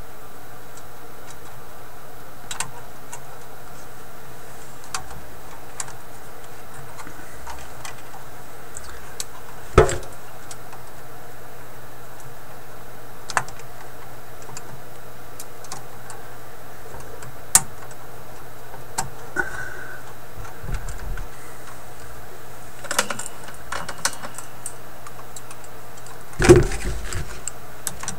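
Small metallic clicks and taps of hand tools and a capacitor's leads being worked into a tube radio chassis, with two louder knocks, about ten seconds in and near the end, over a steady background hum.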